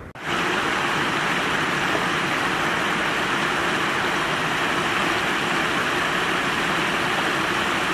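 A steady rushing noise at an even level, with no speech. It cuts in suddenly just after the start and cuts off suddenly at the end.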